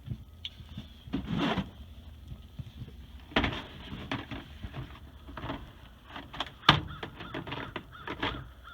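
A screwdriver scraping dried grime off a removed trailer air-brake valve. It makes a run of short, irregular scrapes and metal clinks, a few of them sharper and louder.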